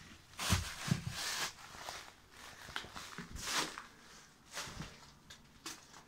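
Footsteps on a rubble-strewn concrete floor: a handful of irregular steps and scrapes, the heaviest about half a second and a second in.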